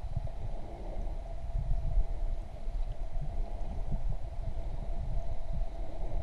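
Muffled underwater sound picked up by a GoPro: irregular low rumbling and soft thuds of water moving around the camera, over a steady hum.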